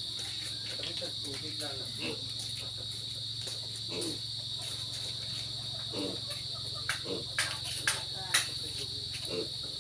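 Steady high-pitched chirring of insects, like crickets, throughout, with a low hum beneath. Several sharp snaps come about seven to eight and a half seconds in, the loudest sounds here.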